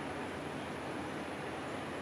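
Steady, even rumble and hiss of distant engines from ship traffic and machinery on the canal, with a faint high steady whine above it.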